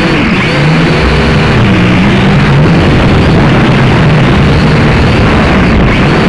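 Battery-powered drone's motors and propellers running in flight, heard close from the drone's own camera: a loud, steady rush of propeller noise with a whine whose pitch keeps wandering up and down as the motors change speed.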